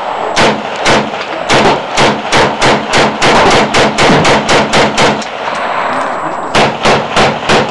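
Rifle fired in rapid succession: a fast string of about eighteen shots at roughly four a second, a pause of about a second and a half, then four more shots.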